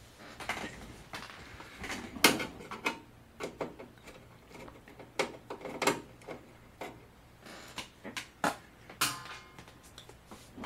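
Hands handling the wiring inside an opened LCD TV: an irregular series of clicks, knocks and rustles of cables and plastic connectors, the loudest click about two seconds in.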